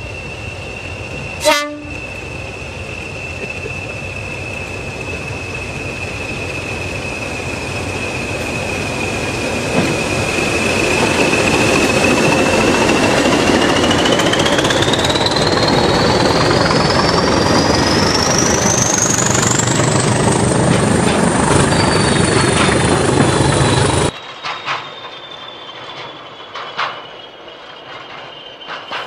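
Class 20 diesel locomotives working a train: a steady high whistle over the engine noise grows louder as they approach, then they pass close under power, the whistle rising steeply in pitch as the engines open up. A brief sharp burst comes about a second and a half in, and near the end the sound drops suddenly to a quieter receding locomotive with a falling whistle and a few clicks.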